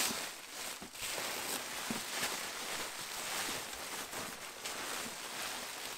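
Plastic packing bags and bubble wrap crinkling and rustling as they are handled and pulled out of a cardboard box, with many small crackles.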